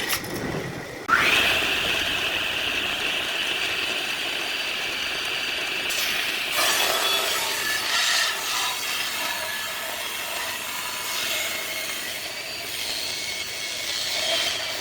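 Power tool cutting wood: it starts abruptly about a second in with a short rise in pitch, then keeps up a steady high cutting noise with small changes in pressure.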